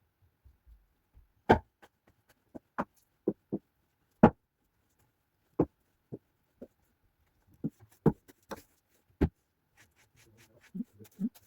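A series of irregular sharp knocks and clicks, about a dozen spread over several seconds, with near quiet between them.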